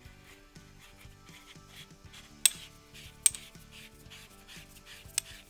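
Soft rubbing and scraping of small tools and pistol parts, broken by three sharp metallic clicks, the first two about a second apart and the third near the end, over quiet background music.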